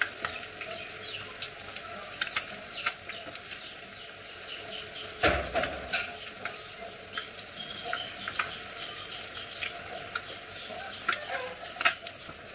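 Egg and potato bondas deep-frying in shallow oil, a steady sizzle with frequent small crackles and pops, while a metal slotted spoon turns them in the pan. One louder clunk comes about five seconds in.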